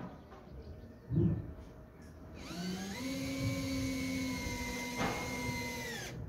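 An electric power tool's motor spins up about two and a half seconds in, runs at a steady pitch for about three and a half seconds, then winds down. A short dull thud comes about a second in.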